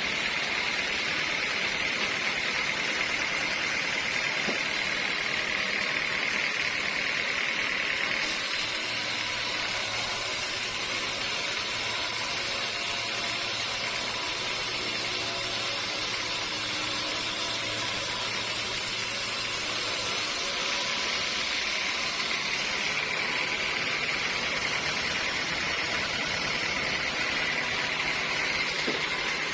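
Sawmill saw running steadily with a continuous mechanical whine and noise while sawing teak logs.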